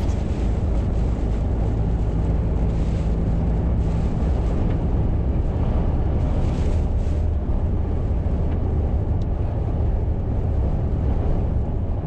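Steady rumble of a Mercedes-Benz lorry's engine and tyres heard inside the cab at motorway speed, with two brief swells of hiss about three and six and a half seconds in.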